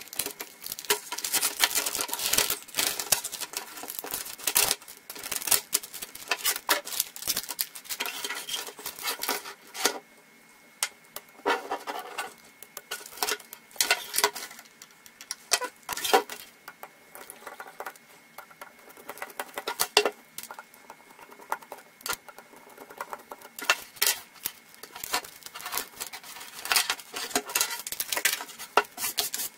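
Irregular clicks, taps and rattles as the Hasee Slikroad Q310N laptop's display assembly is handled and taken apart: hinges, brackets, the LCD panel and its back cover knocking and scraping on a wooden bench.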